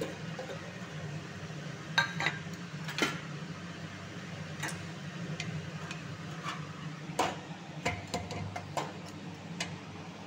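Light metallic clinks and taps of a stainless-steel pressure cooker and the steel bowl inside it being handled, about ten scattered knocks, over a steady low hum.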